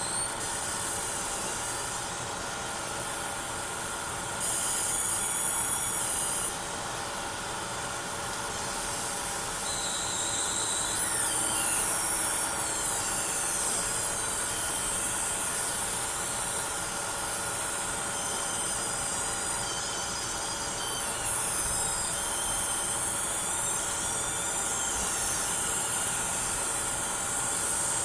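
Graphics card coil whine: a high-pitched electrical whine and buzz from the card's inductors, made of several steady tones, with the highest ones jumping and sliding in pitch several times over a steady hiss.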